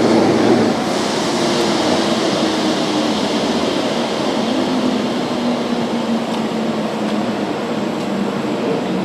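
Jet aircraft engine noise: a steady rushing sound with a faint low hum that drifts slowly down in pitch.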